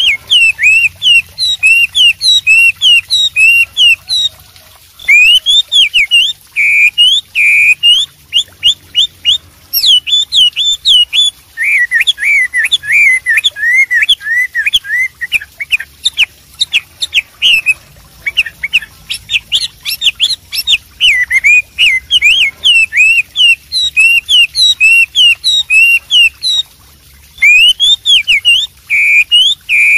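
Hwamei (Chinese melodious laughingthrush) singing a loud, fast, varied song of whistled notes that sweep up and down. The phrases are broken by short pauses about a second long.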